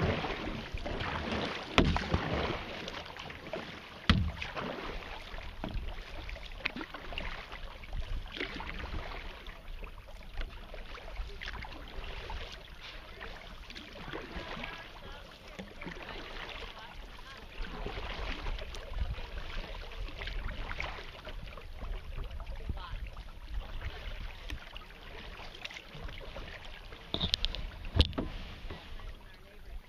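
Kayak paddle strokes dipping and pulling through calm river water, a steady run of splashing and dripping, with a few sharp knocks, the loudest near the end.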